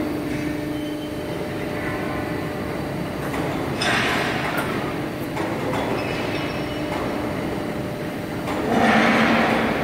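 Hydraulic guillotine shear running with a steady mechanical hum, with two louder surges of noise, one about four seconds in and a stronger one near the end.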